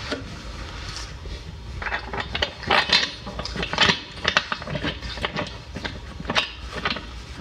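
Irregular metallic clicks and clinks of a bolt and washer being threaded by hand into the corner bracket of a metal table leg, starting about two seconds in.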